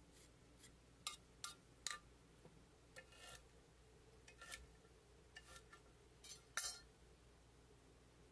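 Faint clicks and short scrapes of a vegetable peeler and a chef's knife working burdock root against a stone cutting board, about a dozen strokes, the loudest about two-thirds of the way through.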